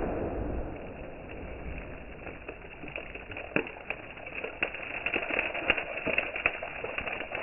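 Aftermath of sodium metal exploding on pond water: the rush of the blast dies away over the first second, then scattered small ticks and pops, more frequent toward the end, as spray rains back onto the surface and leftover bits of sodium react.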